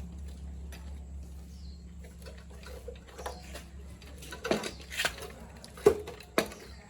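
Scattered light clicks and knocks of objects being handled, with two sharper knocks close together near the end, over a steady low hum.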